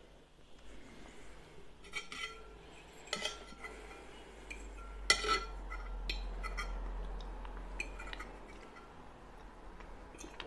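Metal fork clinking and scraping against a white ceramic bowl while scooping up the last of the sauce: scattered sharp clinks, the loudest about five seconds in.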